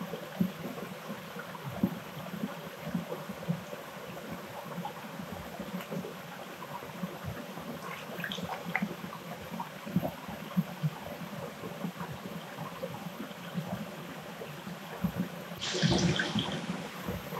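Running water trickling and gurgling, with small irregular knocks and splashes, and a brief louder rush of noise near the end.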